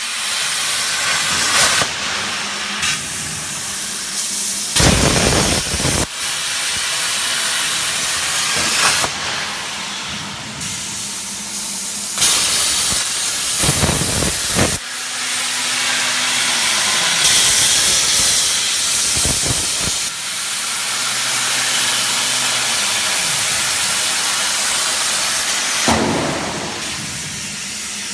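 CNC plasma cutter's torch hissing loudly as it cuts sheet metal, the hiss changing abruptly in level several times. A faint low hum glides downward now and then beneath it.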